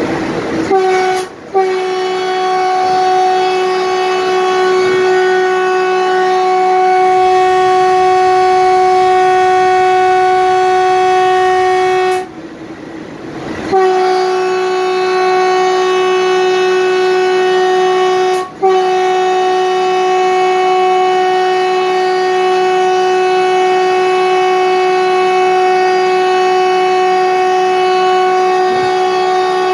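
A train horn sounding one loud, steady, single-pitched note. It gives a short toot, then a blast of about ten seconds, then after a gap of a second or so two more long blasts of about five and eleven seconds with only a momentary break between them.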